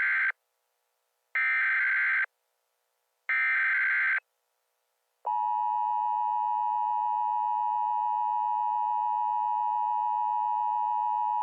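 Emergency Alert System SAME header: the tail of one burst and then two more harsh digital data bursts, each under a second long and about a second apart. About five seconds in, the EAS attention signal starts, a steady two-tone beep at 853 and 960 Hz, and it holds unchanged.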